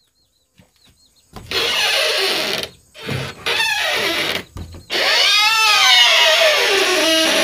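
A person's voice calling out in three long, drawn-out phrases whose pitch sweeps up and down, starting after a second of quiet.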